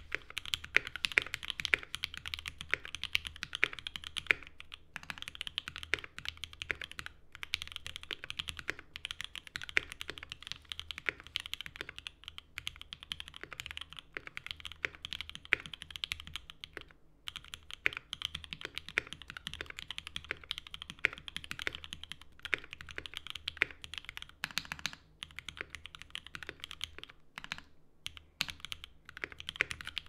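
Steady typing on a Mode80 tenkeyless custom mechanical keyboard fitted with lubed and filmed Alpaca V2 linear switches and GMK keycaps: fast, continuous key presses with a few short pauses. This is a typing sound test of a freshly built board, and the builder feels its stabilizers need a little more lube.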